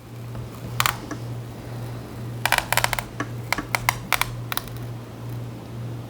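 Small sharp clicks and taps of a precision screwdriver and tiny screws on a laptop's bottom cover during disassembly, with a quick run of clicks about two and a half seconds in and single ticks after it. A steady low hum runs underneath.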